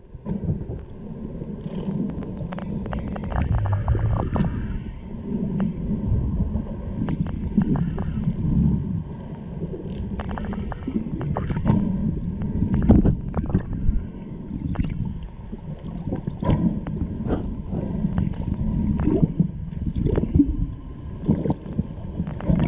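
Underwater sound picked up by a camera in its housing just below the surface: a steady low rumbling wash of water with many scattered clicks and crackles.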